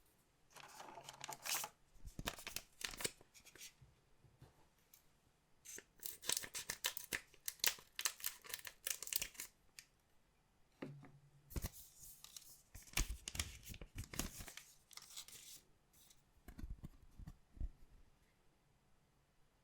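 Collectible card packs being opened by hand: the wrappers tear and crinkle and the cards are handled, in three bursts, with a few soft knocks near the end.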